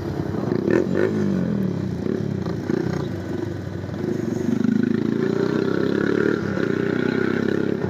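Hi-Speed Infinity 150cc motorcycle engine running while riding. Its pitch sweeps up and down about a second in, and it grows louder from about four seconds in as the bike picks up speed.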